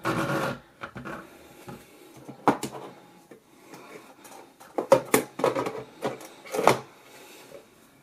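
Plastic knocks, clicks and rubbing from handling a compact plastic dehumidifier and its removable water tank, with sharp knocks about two and a half, five and nearly seven seconds in.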